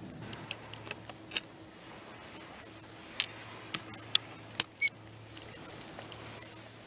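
Sharp plastic-and-metal clicks and snaps from a ski crampon being handled and fitted into a Fritschi Diamir touring binding: a few light clicks at first, then about five louder ones in a cluster in the middle.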